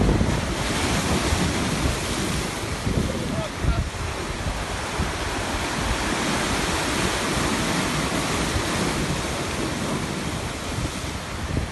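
Sea surf washing and breaking on the shore in a steady roar of waves, with wind buffeting the microphone.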